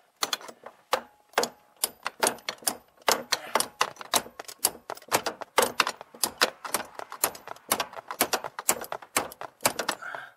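Rapid, irregular metallic clicking and tapping of hand tools working on a 1996 Mustang's steering shaft below the column, several sharp clicks a second.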